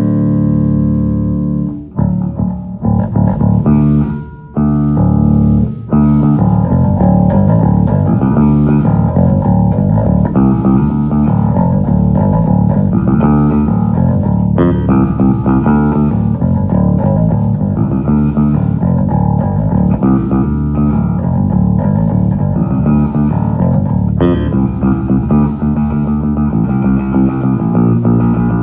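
Wolf S7-7 seven-string bass played through a Phil Jones Bass amp set flat with no compression. A held chord rings out at the start, then come a few separate notes and chords with short breaks, and from about six seconds in a continuous run of busy playing.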